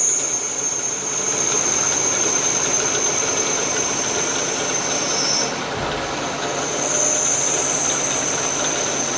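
FEMCO HL-35 slant-bed CNC lathe turning a nylon part dry, the tool cutting radiuses: a steady machine noise with a high whine that dips and breaks off about five and a half seconds in, then comes back about a second later.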